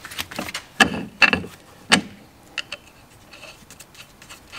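Hand tools and steel suspension hardware clanking as control-arm bolts are refitted: three sharp metallic knocks in the first two seconds, then a few light ticks.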